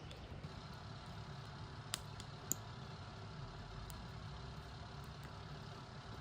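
Low steady rumble of a vehicle engine running, with two faint clicks about two seconds in.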